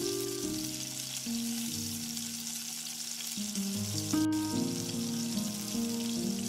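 Flour-coated chicken wings deep-frying in a pan of hot oil, with a steady sizzle of bubbling oil, under background music of held notes.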